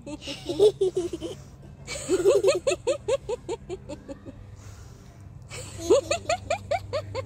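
People giggling in rapid, rhythmic bursts of laughter, about six or seven pulses a second. There are three bursts, with a longer pause for breath before the last. This is deliberate laughter-yoga giggling, done after an inhale.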